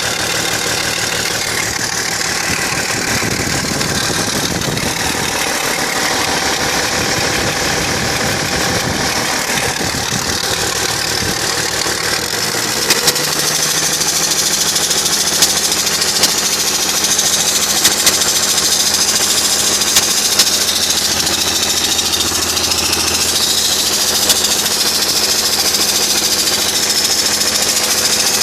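BMW 330Cd's straight-six diesel engine running with a strange ticking sound. About halfway through, the sound settles into a steadier low hum, with occasional sharp clicks standing out.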